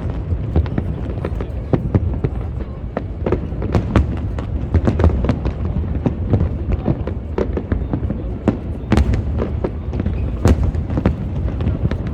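Aerial fireworks going off in a rapid, irregular string of sharp bangs and crackles, several a second, over a constant low rumble.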